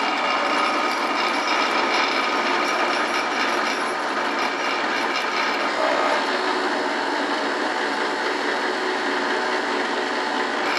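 Drill press running steadily with a brad point bit, boring a shallow flat-bottomed spot into the workpiece.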